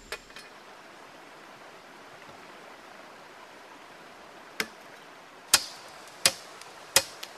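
A machete chopping into wood to rough out a canoe paddle: about five sharp blows in the second half, roughly one every three-quarters of a second, over a steady hiss.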